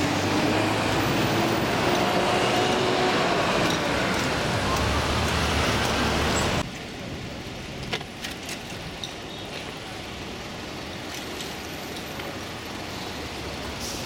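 Busy city road traffic, with vehicles driving past and an engine note shifting in pitch. About six and a half seconds in it cuts abruptly to a quieter street background with a few light knocks.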